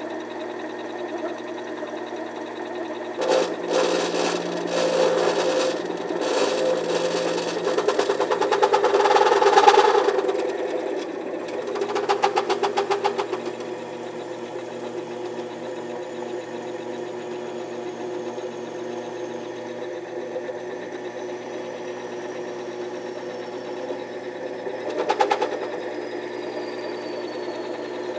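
Mini lathe motor and spindle running steadily while a tool cuts brass stock. The cutting noise comes in passes: a long, louder stretch a few seconds in, a shorter one around twelve seconds, and a brief one near the end.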